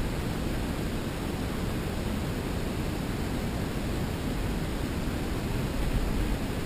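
Steady wind noise on the camera microphone: an even rushing hiss with a fluctuating low rumble and no separate events.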